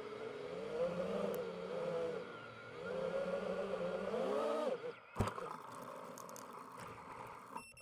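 Motors and propellers of a DJI FPV drone whining, the pitch rising and falling with throttle. The whine drops away near the middle, there is a sharp click a moment later, and then a fainter steady hum.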